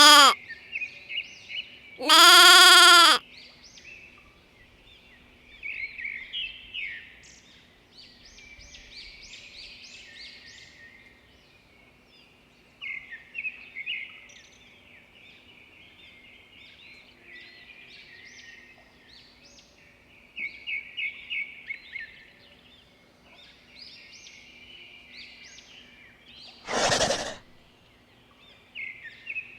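Small birds chirping and singing in short high phrases over a faint steady hum, with a loud drawn-out farm-animal call, a bleat, in the first few seconds. A short burst of noise comes near the end.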